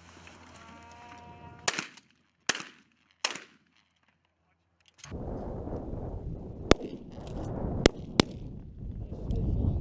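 Shotgun shots at pigeons: three reports about a second apart, each with a short echo, then after a brief gap wind buffeting the microphone with three more sharp shots, the last two close together.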